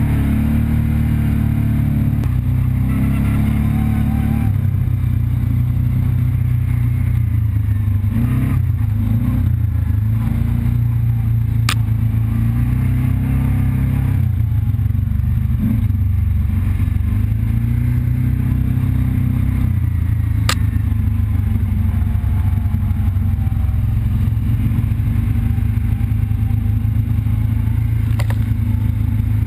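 ATV engine running as the quad is ridden along a rough dirt trail, its engine note shifting with the throttle. There are two sharp clicks, about 12 and 20 seconds in.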